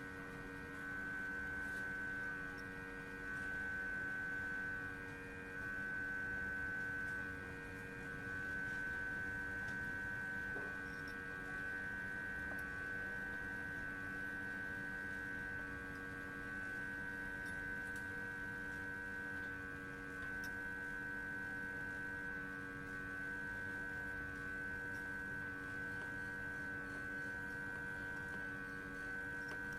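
Hot air rework station running over a MOSFET on a laptop motherboard during soldering: a steady electrical whine with a high tone over a lower hum, wavering a little in level in the first several seconds.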